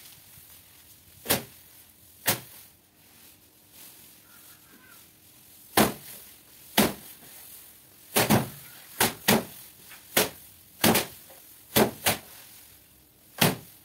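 Bundles of harvested rice stalks beaten against a wooden table to thresh out the paddy grain by hand: about thirteen sharp whacks at an irregular pace, coming faster from about eight seconds in.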